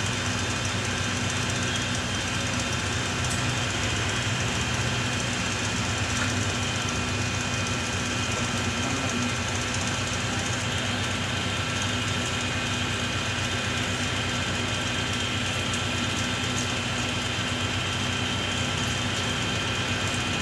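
A steady machine hum with a few thin, constant high whining tones over it, never changing in level.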